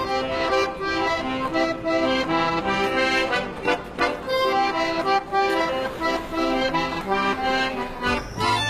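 A Nokia phone ringtone: a synthesized melody of short notes over a steady rhythm. Near the end a different tune with a low bass line starts.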